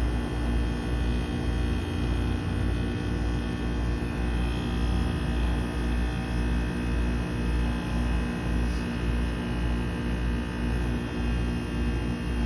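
2008 Trane XR13 heat pump running in its defrost cycle: a steady machine hum with a low, slightly pulsing undertone.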